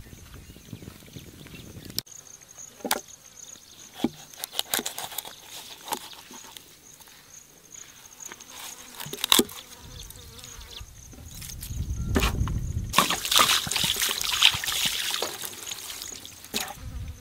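A knife cutting a raw whole chicken on a wooden chopping board, with several sharp knocks of the blade on the wood. Near the end, water is poured over the chicken and splashes onto the board for a few seconds. A steady high tone sounds in the background.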